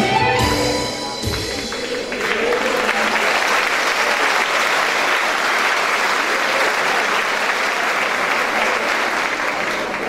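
The last notes of a Turkish classical music choir and ensemble die away in the first second or two, then the audience applauds steadily.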